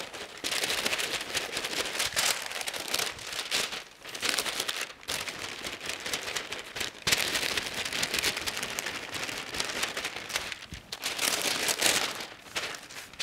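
Parchment paper crinkling and rustling as gloved hands roll a log of cookie dough inside it, in uneven surges with a few brief pauses.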